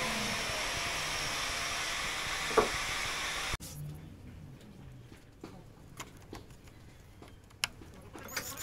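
A steady hiss with one sharp knock, which cuts off abruptly about three and a half seconds in. Then faint scattered clicks and taps of hand tools being picked up and set down on a wooden workbench.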